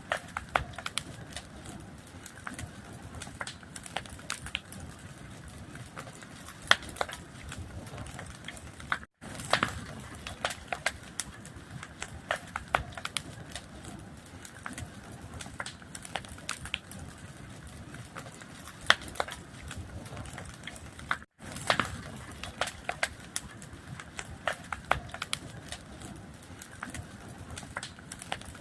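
A fire burning, with a steady low rumble of flames and frequent irregular sharp crackles and pops. The sound cuts out completely for an instant twice, about 9 seconds in and about 21 seconds in.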